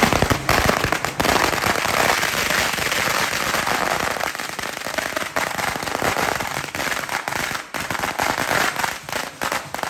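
A string of firecrackers going off in a rapid crackling rattle of bangs. It is densest over the first few seconds and thins to scattered separate pops near the end.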